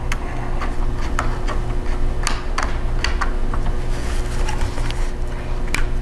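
Small Phillips screwdriver and screw clicking and scraping against a 2.5-inch laptop hard drive and its drive caddy while the screw holes are lined up. Irregular light clicks sound over a steady low hum.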